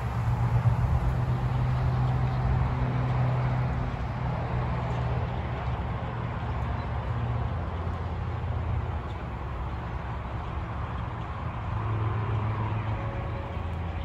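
Massed chatter of a large flock of blackbirds, an even, dense din with no single call standing out, over a steady low rumble.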